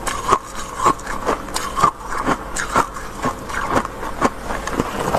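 Freezer frost crunching between the teeth while being chewed, about two crunches a second.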